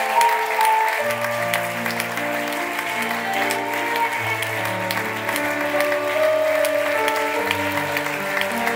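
An audience applauding with scattered claps over music with slow, held notes and a shifting bass line.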